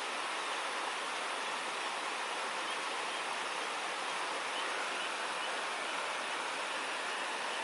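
Steady, even rushing noise with no distinct events, like running water or a constant hiss.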